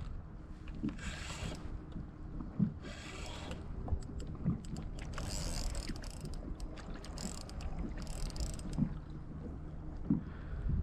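Spinning reel being cranked in four short spells, a whirring mechanical noise with a few soft knocks between, over a low steady hum.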